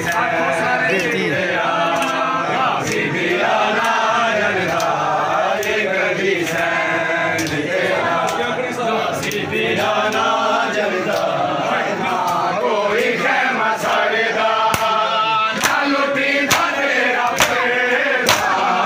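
Men's voices chanting a Muharram matam noha together, with sharp, evenly spaced slaps of palms on bare chests about once a second, clearest in the second half.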